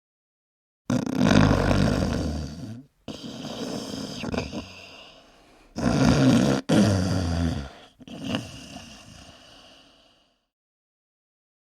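A person snoring: two loud snores, about five seconds apart, each trailing off into a quieter breath.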